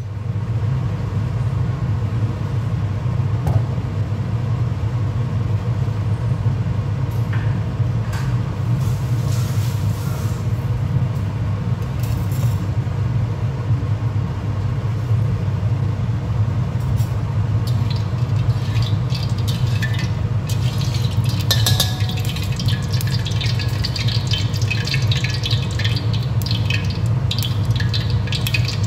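Cooking oil heating in a wok on a gas hob, over a steady low rumble. From about two-thirds of the way through, the oil begins to crackle and spit lightly as it gets hot.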